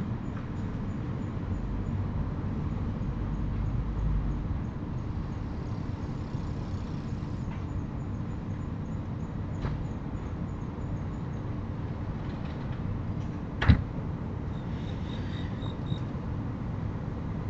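Steady low background rumble with one loud, sharp knock a little past the middle and a few fainter clicks.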